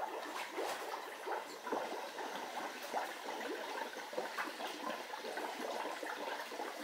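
Underwater bubbling and gurgling from a partly pierced aerosol spray paint can, its gas and paint forcing out through a small hole: a continuous crackle of many small pops.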